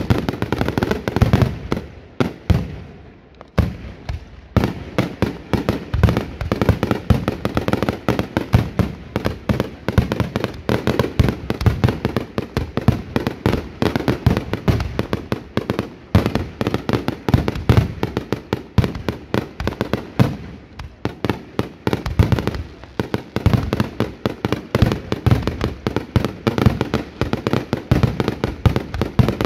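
Fireworks going off in a dense, rapid barrage of bangs and cracks, with a short lull about three seconds in and another near two-thirds of the way through.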